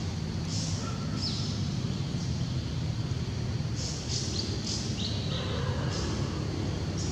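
Short, high-pitched chirping calls in scattered clusters, some sliding down in pitch, over a steady low outdoor rumble.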